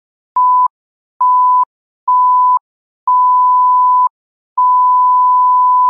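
Electronic beep tone sounding at one steady pitch in a series of beeps with short silences between, each beep longer than the last, the final one held about a second and a half.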